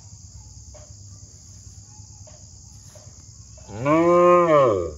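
A cow moos once near the end: a single loud call of just over a second that rises and then falls in pitch. Crickets chirp steadily in the background.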